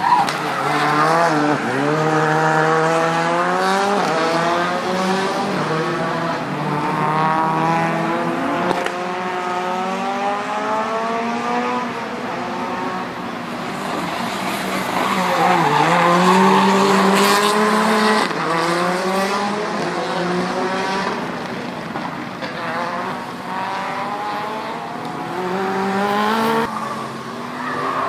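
Rally car engines racing on a tarmac circuit, revving hard through the gears: the pitch climbs, then drops at each shift, over and over.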